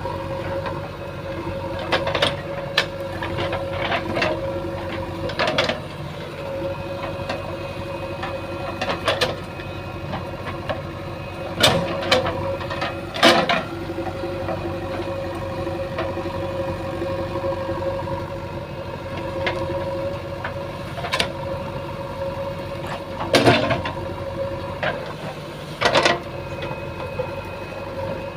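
JCB 3DX backhoe loader's diesel engine running steadily, with sharp clanks and knocks every few seconds as the machine works.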